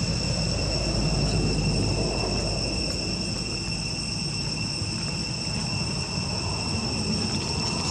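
Insects droning steadily in a high-pitched, unbroken chorus, over a low rumble.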